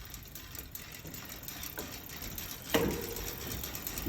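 Industry Nine Hydra rear hub's freehub buzzing as the wheel spins freely, a rapid fine ratcheting of its pawls that gets louder about three-quarters of the way in.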